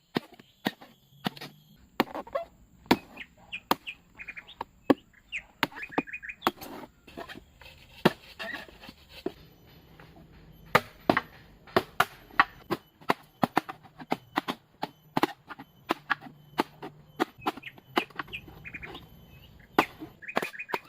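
Repeated sharp chopping strikes on bamboo, about two to three a second. A bird calls now and then in short runs of quick notes.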